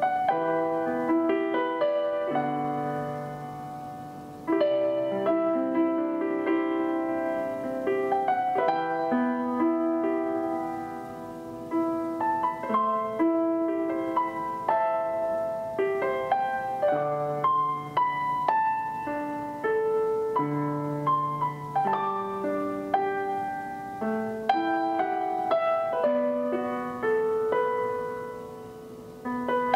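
Background piano music, its notes struck and left to ring and fade.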